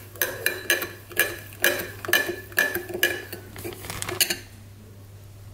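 Metal spoon stirring coarse salt into hot water in a glass tumbler, clinking against the glass about twice a second, and stopping about four seconds in.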